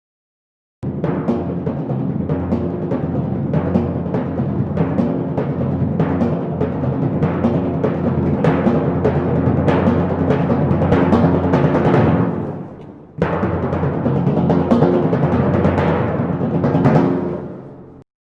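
Recorded instrumental music with rapid struck notes, low in pitch, played as an example of a low (grave) sound. It fades out about twelve seconds in, starts again a moment later, and fades out near the end.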